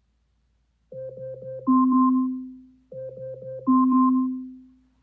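Short electronic keyboard jingle: four quick notes and then a longer note that fades away, played twice starting about a second in.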